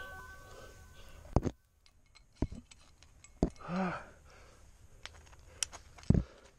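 Background music fading out, then scattered sharp clicks and clinks of climbing gear as a climber moves up a crack and clips the rope into a carabiner, with a brief grunt about midway.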